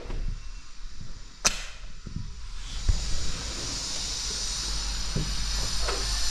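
A balcony door clicks sharply about a second and a half in, with a few light knocks after it. From about three seconds in, a steady high hiss of outdoor air comes in over a low rumble.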